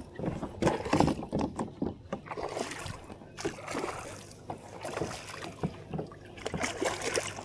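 Irregular splashes and knocks around a kayak while a hooked bass is played in on rod and reel.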